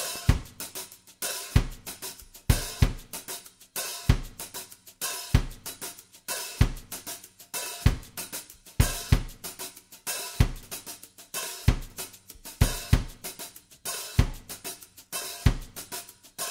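Background music of a drum kit alone playing a steady beat: kick and snare hits about every second and a quarter, with hi-hat and cymbal ticks between them.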